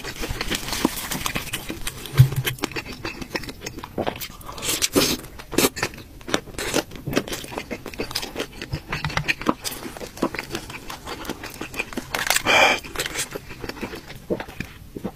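Close-miked eating sounds of a person chewing and slurping noodles in broth: many short wet clicks and smacks, with one longer hissing slurp about twelve seconds in.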